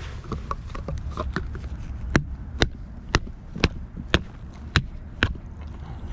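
A sharp rock striking a tin can of corn to punch it open: light taps at first, then from about two seconds in seven hard, sharp knocks, about two a second.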